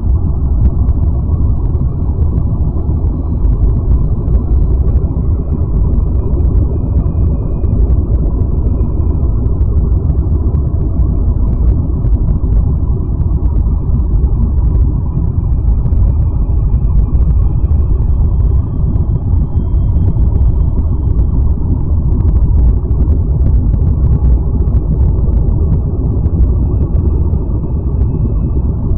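Deep, steady rumbling drone of the kind presented as a planet's 'sound' in space-sound videos, with a few faint thin high tones drifting in and out above it.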